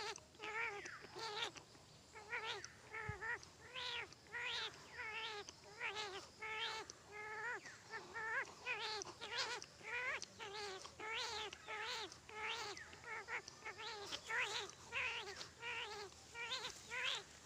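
A man's vocal imitation of a newborn kitten mewing. Short, high, wavering mews follow one another about one and a half times a second, the cry of a kitten two or three days old calling for its mother when hungry.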